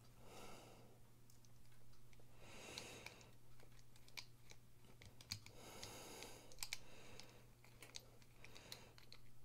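Faint scattered small clicks and soft handling noise as a screwdriver turns a small screw into the metal frame of a Bestech Falko folding knife.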